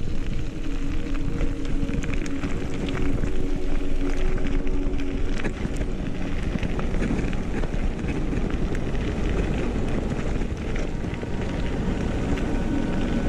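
Mountain bike descending fast on a gravel forest road: wind rushing over the camera microphone, with tyres crunching over gravel and the bike rattling in many small clicks.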